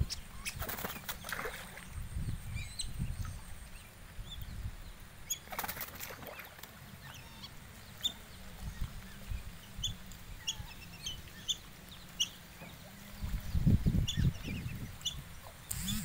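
Netted whistling ducks giving many short, high whistling calls, with a couple of brief bursts of wing flapping.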